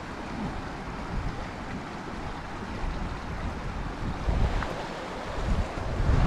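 Steady rush of the Big Thompson River's flowing water, with gusts of wind buffeting the microphone as low rumbles near the start and again near the end.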